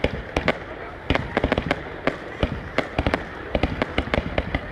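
Fireworks going off: a rapid, irregular run of sharp bangs and pops, several a second, over a continuous low rumble.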